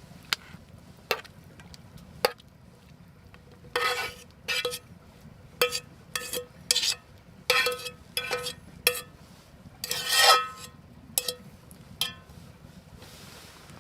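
A metal utensil clinking and scraping against a pan while stirring steak and mushrooms, with irregular ringing metallic clinks, the loudest about ten seconds in, over a low steady background.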